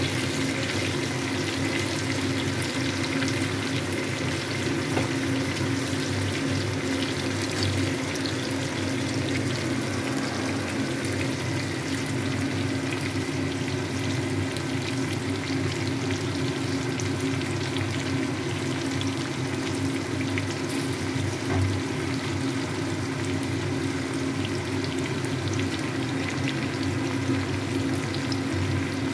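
Raw green mango pieces frying in a kadai of hot mustard oil: a steady sizzle with fine crackling, over a steady low hum.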